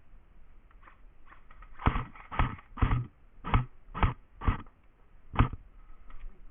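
A run of about seven heavy thumps, roughly two a second, with a longer pause before the last one.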